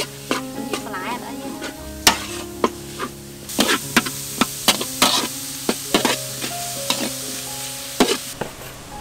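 Metal ladle scraping and knocking against a steel wok while mince, shallots, garlic and chili stir-fry in hot oil, with frequent sharp clicks. The sizzling grows louder from about three and a half seconds in and eases near the end.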